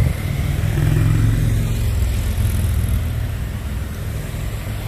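Low engine rumble from a motor vehicle, swelling about a second in and then easing off.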